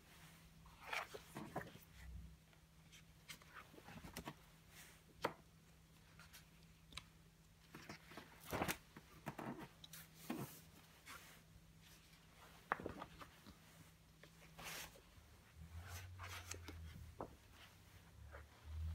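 Vinyl-on-nonwoven wallpaper sample pages of a catalogue being turned and brushed by hand: scattered faint rustles, swishes and soft slaps of the heavy sheets.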